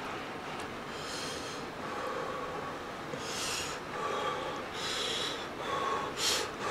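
A person slurping ramen noodles, with four short hissing draws of air spread across a few seconds.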